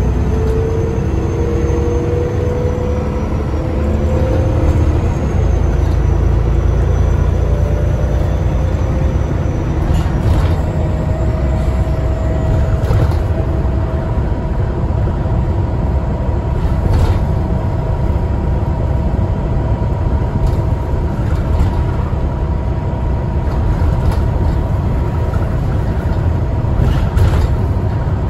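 Alexander ALX400 double-decker bus under way, heard from inside: a deep steady engine and road rumble, with engine tones climbing as it pulls away and the thin high turbo whistle over it in the first few seconds. A steady whine follows, with occasional rattles and knocks from the body.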